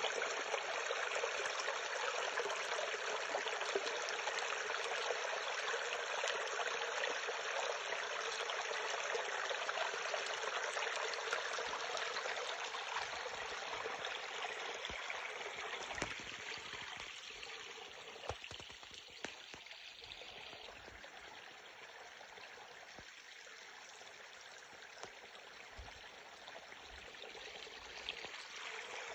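Running water of a stream, a steady rushing that grows fainter about halfway through and picks up again near the end, with a few faint thumps in the middle.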